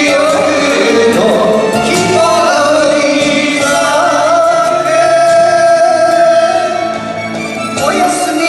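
Enka song: a male vocalist sings with instrumental accompaniment and holds one long wavering note through the middle, before the music eases briefly near the end.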